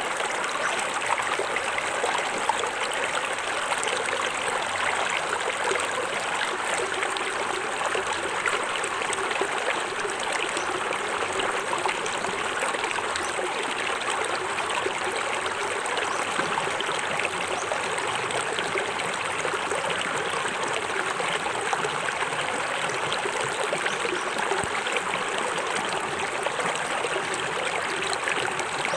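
Small forest waterfall splashing and running steadily, with a constant rush of falling water.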